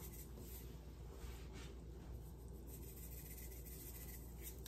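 Faint scratchy rustle of dried basil being shaken from a spice shaker, in a few soft, irregular strokes.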